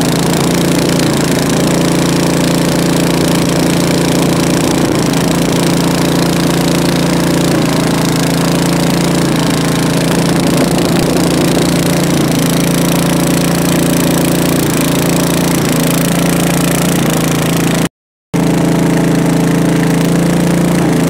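Small wooden boat's engine running steadily at speed, loud and even, with a rough, knocking edge. The sound cuts out for a moment about three-quarters of the way through, then carries on unchanged.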